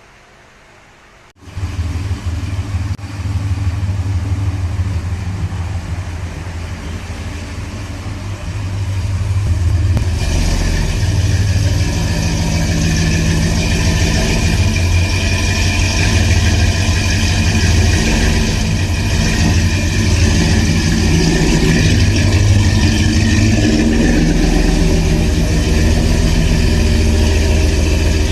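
Cammed 5.7-litre Hemi V8 of a Ram 1500 pickup cranking to life about a second and a half in and running, getting louder about ten seconds in and staying loud: the first start after the torque converter and transmission went back in.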